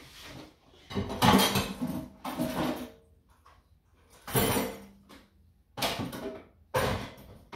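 Kitchenware being handled at the counter: about five separate clattering knocks and clinks, some with a brief ring, spread over several seconds.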